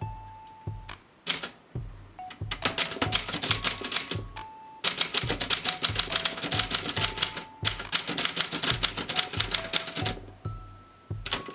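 Olympia Traveller de Luxe portable typewriter being typed on: fast runs of clacking keystrokes, sparse for the first two seconds, with a brief break about halfway and thinning again near the end. Background music with a simple melody plays under it.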